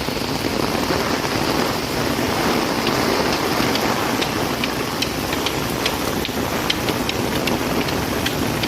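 Steady rain. From about three seconds in, irregular sharp light ticks sound above it.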